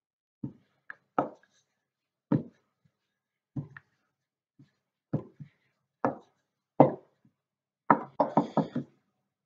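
Wooden rolling pin knocking against the worktop as pastry is rolled out: single knocks about once a second, then a quick run of about six knocks near the end.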